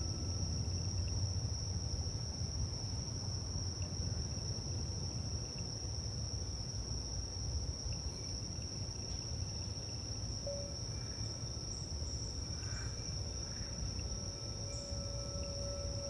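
Crickets chirring in one unbroken high-pitched trill over a low steady rumble, with the faint lingering ring of crystal singing bowls. A new bowl tone sounds briefly about ten seconds in, then rises again and swells near the end.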